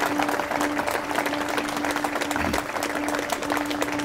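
Wedding guests applauding, a dense patter of many hands clapping, with music playing under it.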